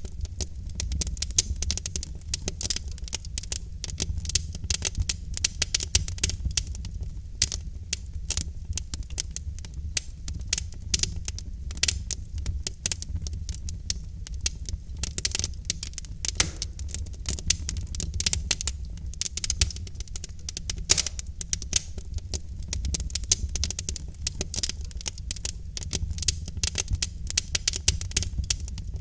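Wood fire of burning logs crackling and popping continuously in dense, irregular clicks over a steady low rumble.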